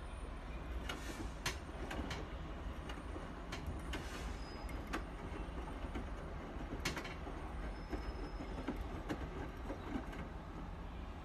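Bosch washing machine running: a steady low hum with irregular sharp clicks and knocks and a couple of brief rushing swishes, the odd noise the machine is making.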